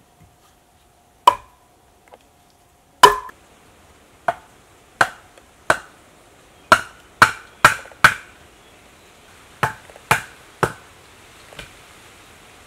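Wood striking wood as a log is used as a mallet to knock short wooden stumps into the ground: about a dozen sharp knocks, single at first, then in quick runs of two to four, the last one faint.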